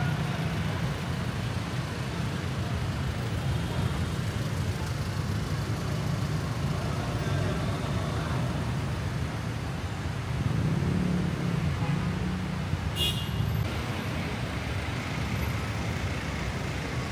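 City street traffic: a steady rumble of vehicle engines and tyres, swelling for a couple of seconds about ten seconds in as a vehicle passes close. A brief high-pitched sound comes a little after.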